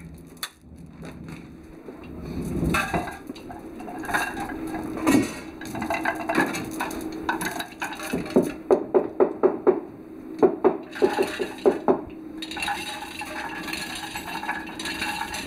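Metal tools and parts clinking and knocking on a steam engine's cylinder top, with a quick run of sharp clinks midway, over a faint steady hum. A rougher scraping stretch comes near the end.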